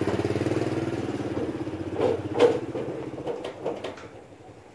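A small engine running with a rapid, even pulse, fading away over the last couple of seconds. A few sharp knocks fall around the middle.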